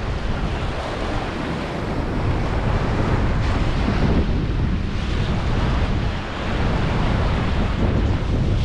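Wind buffeting the microphone over small waves washing onto the beach, a continuous rushing with a heavy rumble that swells and eases.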